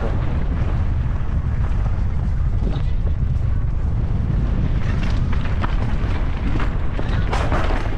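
Mountain bike riding a dirt trail: steady wind rumble on the microphone with tyre and bike rattle, the clicks coming thicker from about five seconds in. Near the end comes a sharp clatter from the drivetrain that sounds to the rider like a snapped chain, though the chain is intact.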